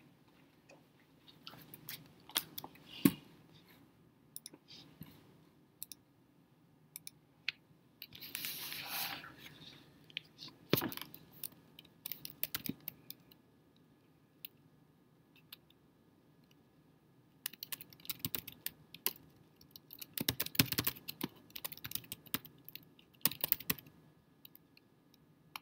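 Computer keyboard typing: scattered key and mouse clicks, a brief rushing noise about a third of the way in, then a quick run of keystrokes in the last third.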